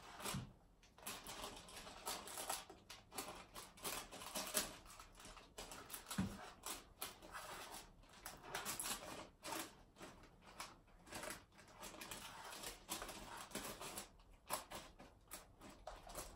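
Spatula pressing and scraping a sticky oat mixture down into a baking-paper-lined tin: soft, irregular scrapes and taps with rustles of the paper.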